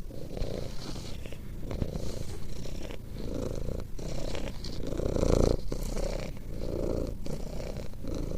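An animal purring: a steady low rumble that swells and fades with each breath, roughly once a second.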